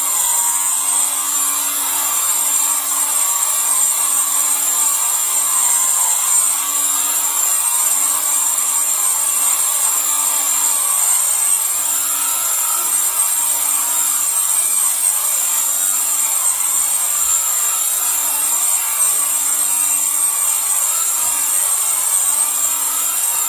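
Vevor ultrasonic vinyl record cleaner running: a loud, steady high-pitched whine over a hiss, with a faint low hum that keeps coming and going.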